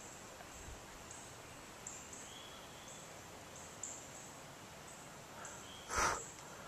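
Quiet woodland ambience: insects buzzing high and faint in on-and-off stretches, with one brief soft rustle near the end.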